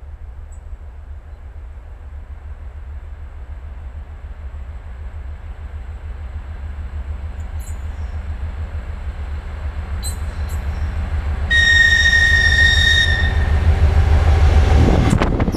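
GE C36-7 diesel-electric locomotive approaching, its deep engine rumble growing steadily louder, with a horn blast of about a second and a half a little before twelve seconds in. Near the end it comes right up to the microphone with a loud rush of engine and wheels.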